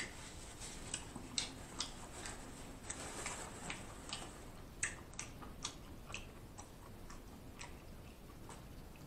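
A person chewing seafood with the mouth closed, close to the microphone: soft, irregular wet mouth clicks and smacks, about two a second.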